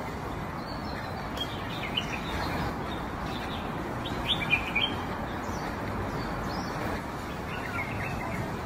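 Giant panda chewing bamboo leaves: a steady crunching and rustling. Small birds chirp over it, loudest in a quick cluster of chirps about four and a half seconds in.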